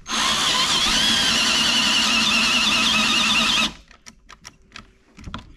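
Cordless drill spinning a Forstner bit through a concealed-hinge jig, boring a hinge-cup hole in a wooden door panel: a steady motor whine with a wavering high cutting tone. It stops abruptly about three and a half seconds in as the drill's battery goes dead.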